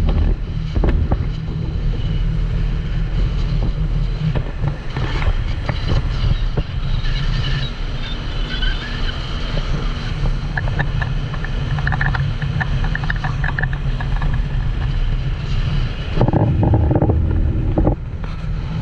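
Speedboat running at speed over open sea: a steady rush of wind buffeting the microphone over engine and hull noise, louder for a couple of seconds near the end.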